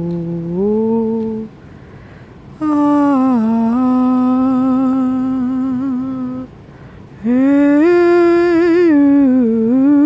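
A woman's voice humming a slow, wordless tune in long held notes, in three phrases broken by short pauses for breath, with a wavering vibrato on a note near the end.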